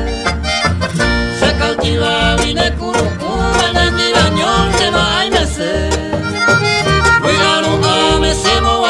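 Paraguayan polka music playing in an instrumental stretch, with a steady bass beat under a busy melody line.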